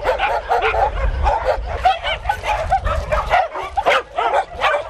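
A large pack of dogs barking and yipping all at once: a dense chorus of short, overlapping calls with no pause.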